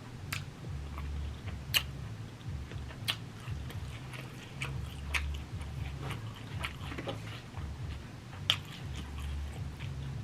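Close-up chewing of a Chipotle steak and chicken bowl, with irregular wet mouth and lip-smack clicks every second or two.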